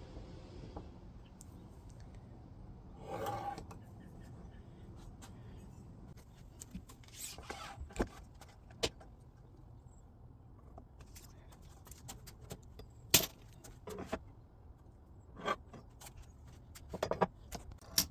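Scattered light clicks and knocks of small hard objects being handled, with a brief scrape about three seconds in and a sharp knock about two thirds of the way through.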